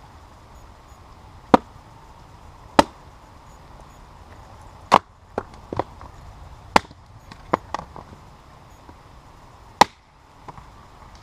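A small axe chopping into a piece of firewood stood on end on a stump: five sharp wooden chops a second or two apart, with lighter knocks between them. The last chop, near the end, splits the piece.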